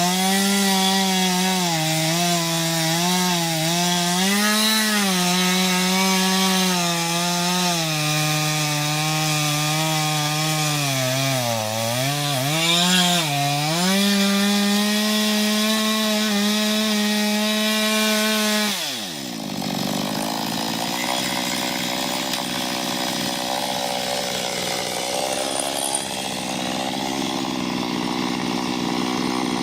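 Small two-stroke chainsaw with a 15-inch bar running at full throttle while cutting into an ash trunk, its pitch wavering and dipping as the chain loads in the wood. About 19 seconds in the throttle is released and the pitch falls away to idle.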